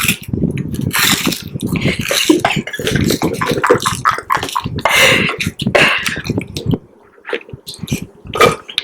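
A child chewing and crunching ice right up against a microphone, a fast irregular run of crunches and wet mouth sounds that eases off about seven seconds in.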